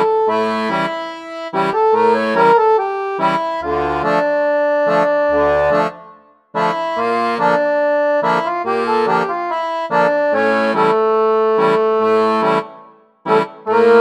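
Instrumental background music: a melody over held chords and bass notes, breaking off briefly about six seconds in and again shortly before the end.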